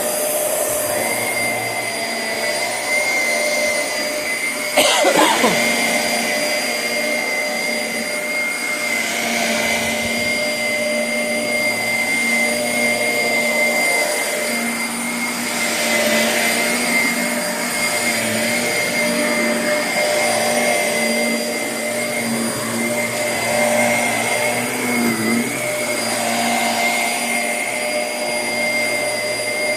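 Shark Navigator upright vacuum cleaner running steadily, a motor whine over a rushing airflow noise that swells and eases every few seconds. There is one short loud sound about five seconds in.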